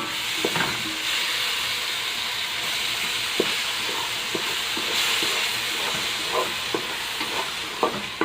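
Onion, tomato and spice masala sizzling in a pan as it is stirred, with scattered sharp taps and scrapes of the spoon against the pan.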